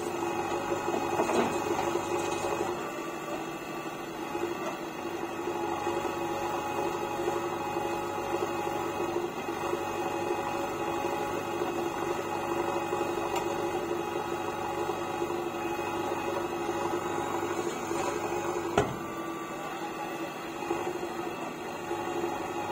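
JCB backhoe loader's diesel engine running steadily as it works the backhoe arm, with one sharp knock near the end.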